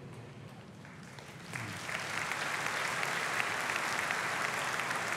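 Large audience applauding, the clapping coming in about one and a half seconds in and then holding steady.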